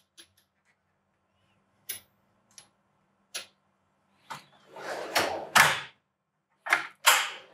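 A few light metal clinks as chrome sockets are set into the foam liner of a toolbox drawer, then the drawer rolling shut on its slides and stopping about six seconds in, followed by a couple more short sliding noises near the end.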